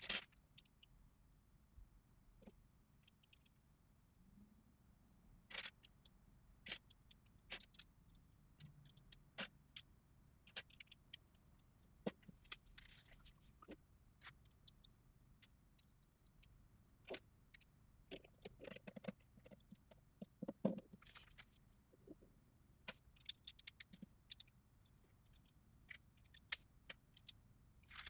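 LEGO pieces of a BrickHeadz set clicking and tapping together as they are handled and pressed on: scattered sharp clicks, with a quicker run of them about two-thirds of the way through.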